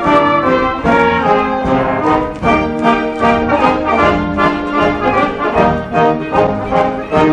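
Theatre pit orchestra playing lively dance music for the stage chorus, with brass prominent over a steady beat, picked up by a 1986 domestic video camera's microphone.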